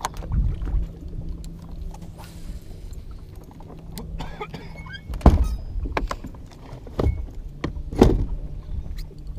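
Bow-mounted electric trolling motor humming steadily, with a pause of a couple of seconds past the middle. Over it come knocks and footsteps on the fibreglass casting deck, and two loud thumps, about five and eight seconds in.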